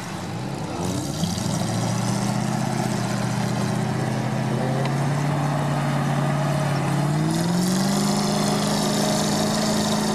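GAZ-66 truck's engine pulling under load as it drives up a slope. The revs rise about a second in, hold steady, then rise again around seven seconds in.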